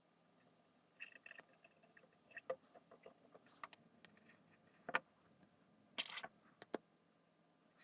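Light clicks and taps of small parts being handled, with a sharper click about five seconds in and a short run of clicks about a second later.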